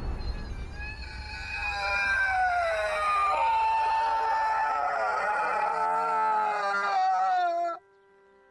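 A man's long, anguished scream, wavering up and down in pitch and held for several seconds before it cuts off abruptly near the end. A low rumble sits underneath and fades out partway through.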